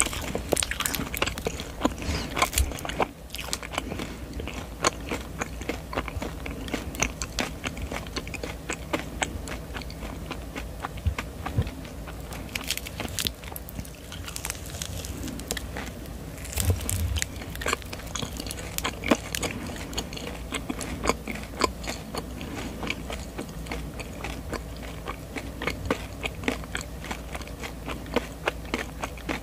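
Close-miked mouth sounds of biting into and chewing a soft Hello Kitty-shaped marshmallow on a stick: a steady run of many small wet clicks, with a few louder bites about halfway through.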